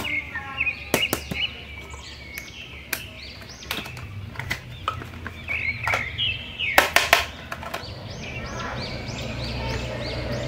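Plastic light-up dancing toy figure being handled, with repeated clicks and knocks from its hard shell, while short high chirping tones repeat over and over.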